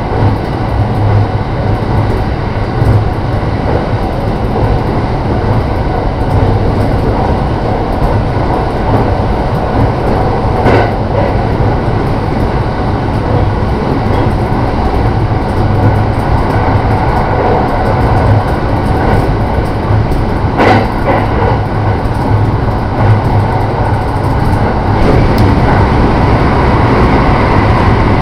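Running noise of a JR Shikoku 5000 series train at speed, heard from the front car: a steady rumble of wheels on rail with a low hum. Two brief clacks come through, about ten and about twenty seconds in.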